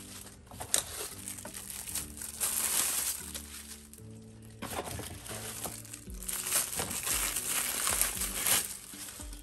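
Clear plastic packaging bags crinkling as silicone utensils are pulled out and handled, in irregular bursts, over soft background music with steady low notes.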